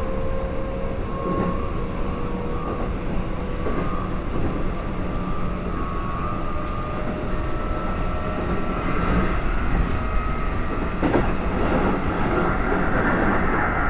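Keikyu electric train running, heard on board: rail rumble with a steady whine in two tones and a few knocks. In the last few seconds the whine rises in pitch. The car is labelled as one that makes an unusual noise.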